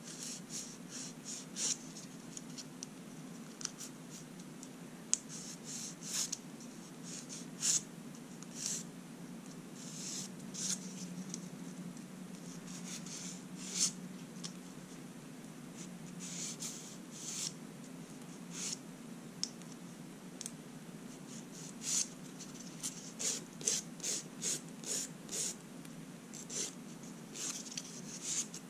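Short, irregular scratching strokes of manicure work on long natural fingernails, some coming in quick runs, over a steady low hum.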